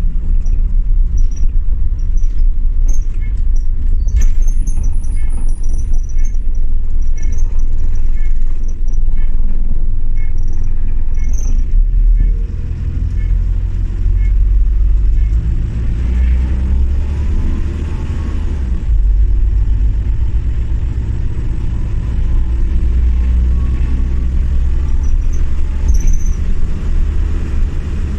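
Single-deck bus's engine and road rumble heard from inside the passenger saloon while it drives, a steady low rumble that rises and falls with the driving. A light, regular ticking runs for several seconds in the first half.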